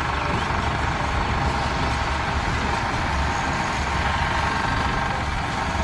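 Shantui crawler bulldozer's diesel engine running steadily as the machine pushes a pile of sand with its blade.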